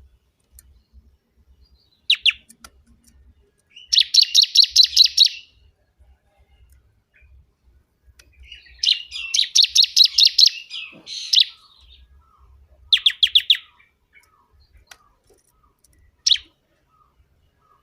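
Bar-winged prinia singing loudly: bursts of fast, evenly repeated high notes, the two longest running about one and a half and two and a half seconds, with short pauses and a single brief note near the end.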